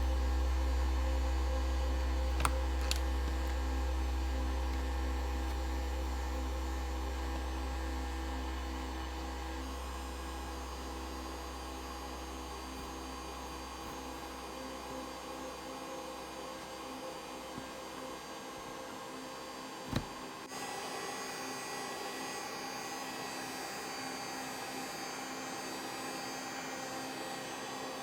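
A heat gun running with a steady whirring hum, with a couple of light clicks about two seconds in and a single knock about twenty seconds in, after which the hum changes pitch. The heat gun is softening the adhesive tape that holds the laptop battery down.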